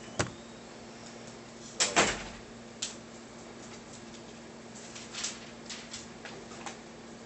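Light knocks and clunks of a hand handling a Samsung Smart PC Pro tablet in its keyboard dock, the loudest a double knock about two seconds in, over a steady low hum.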